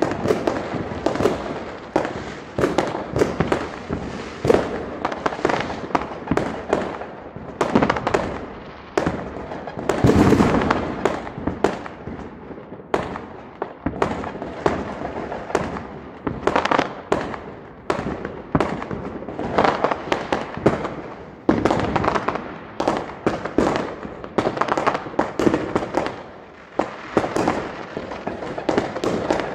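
Fireworks and firecrackers going off all around, many overlapping bangs and crackles several a second without a pause, with a louder cluster about ten seconds in.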